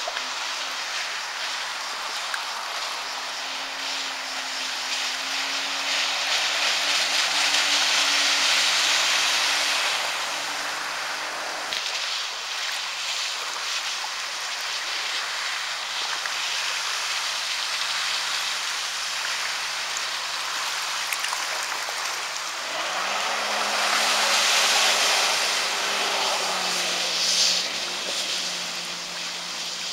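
Sea-Doo personal watercraft (250 PS) running at speed on the sea, its engine note shifting in pitch and climbing about two-thirds of the way through as it carves a turn. A rushing hiss of water and air swells twice over the engine.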